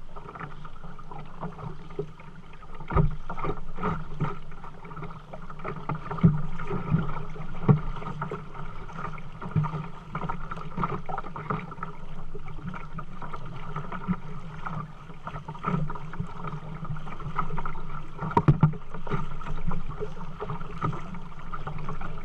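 Kayak being paddled: steady water noise with irregular splashes and drips from the paddle, and a few sharp knocks.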